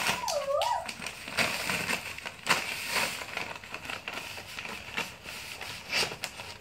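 Labrador tearing and chewing at a paper-wrapped present: irregular crinkling and ripping of the wrapping paper. Just after the start there is a brief pitched sound that dips and then rises in pitch.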